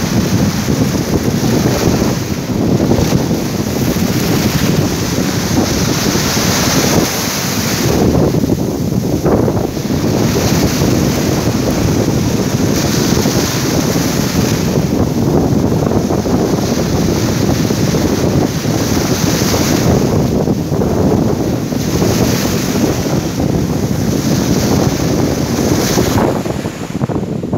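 Wind buffeting the microphone over the wash of sea waves and surf, swelling and easing every few seconds.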